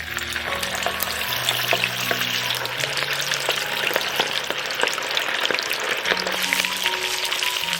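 Food sizzling and spitting on a shichirin charcoal grill, a dense crackling hiss that starts abruptly and holds steady. Soft background music plays underneath.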